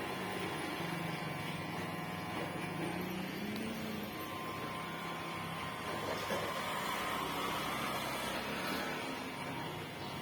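Kemei 1986 electric hair clipper running steadily as it cuts hair, a continuous even buzz.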